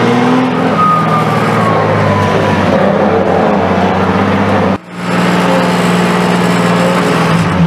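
Drift car's engine running at steady high revs, heard from inside the cabin, with a faint falling whine early on. The sound dips briefly about five seconds in, then carries on much the same.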